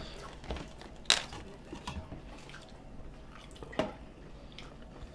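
Quiet chewing and mouth clicks of people eating Hot Cheetos-coated fried mozzarella sticks, with a sharper click about a second in and another near four seconds.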